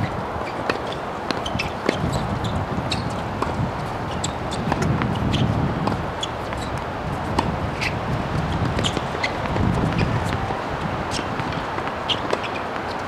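Steady outdoor background noise with many short, high ticks scattered through it.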